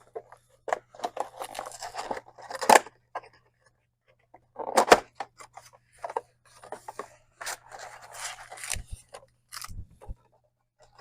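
Cardboard and foil being handled as a box of trading-card packs is opened by hand: irregular rustling, scraping and crinkling, with a couple of sharp snaps, the louder ones about three and five seconds in.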